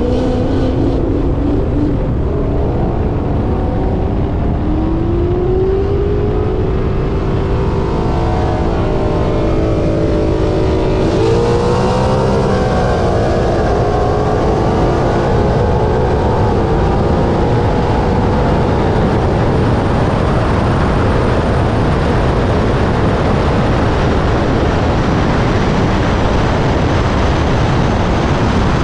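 Ford Mustang 5.0 V8 at full throttle in a roll race. The engine note climbs through each gear and steps at the upshifts, under wind noise that builds as the speed rises past 150 mph.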